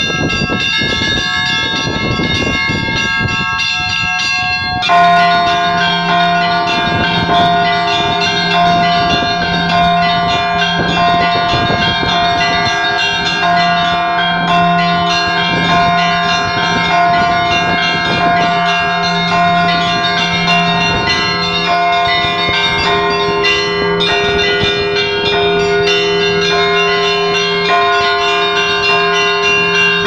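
Orthodox church bells rung by hand with clapper ropes: small bells chime rapidly, and about five seconds in larger, deeper bells join in a steady repeating peal.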